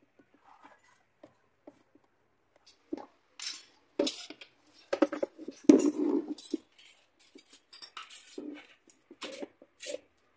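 Plastic air filter box from a 2014 Mira being handled and moved about on a concrete floor: irregular knocks, clicks and rattles of hard plastic, busiest and loudest a few seconds in.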